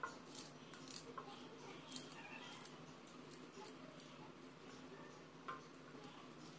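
Faint, scattered clicks and small cuts of a small knife working through vegetables held in the hand, with a low steady hum underneath.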